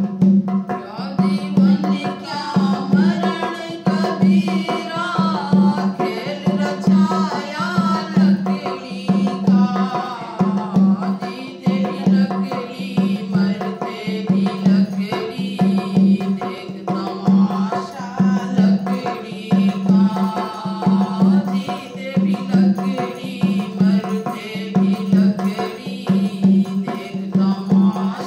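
A woman singing a Hindi devotional bhajan to her own dholak: the drum's bass head beats an even rhythm throughout, and the voice comes in about a second in.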